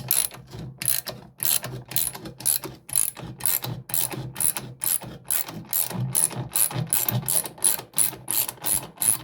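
Ratchet wrench clicking steadily, about three clicks a second, as a bolt is backed out.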